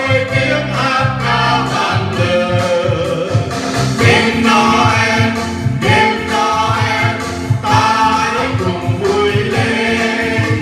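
Choir singing a Christmas song over instrumental accompaniment with a steady low beat.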